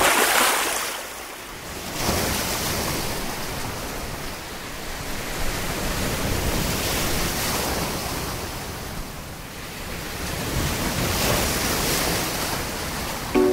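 Sea waves washing in over a shallow shore, the hiss of surf swelling and easing several times, with some wind noise.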